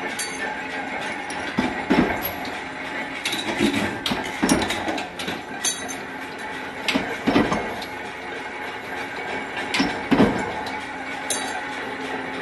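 Irregular metallic knocks and clatter over a steady mechanical hum.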